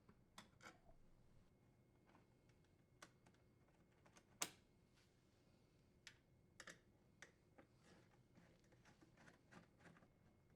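Faint, scattered clicks and taps of a screwdriver with a T15 Torx bit unthreading the door panel screws on a dishwasher door, with one sharper click about four and a half seconds in.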